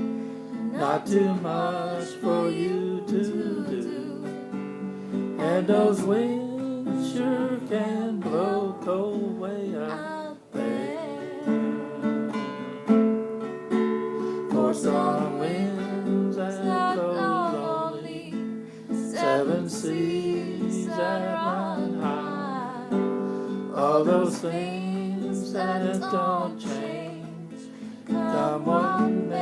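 A folk song played live: an acoustic guitar strummed under a singing voice.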